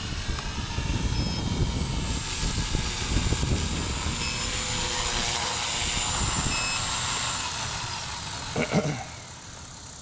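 Align T-Rex 250 electric RC helicopter's motor and rotor whining, then spooling down with a falling pitch after it lands, over gusty wind rumble on the microphone. A brief louder low sound comes near the end, after which it is quieter.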